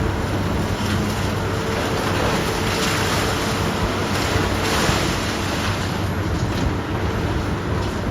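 Heavy demolition machinery working: a steady diesel engine hum under a loud rushing noise that swells briefly about three and five seconds in.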